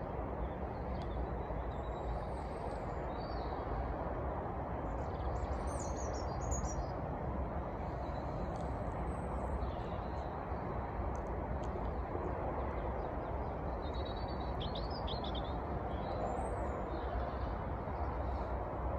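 Small birds chirping in short high bursts, a few times, over a steady low background noise.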